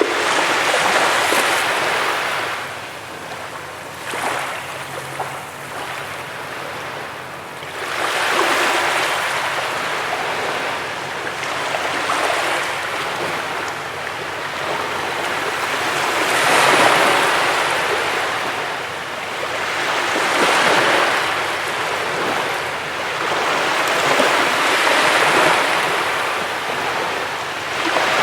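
Sea waves breaking and washing up on a beach: a hiss of surf that swells into a louder surge every four to eight seconds.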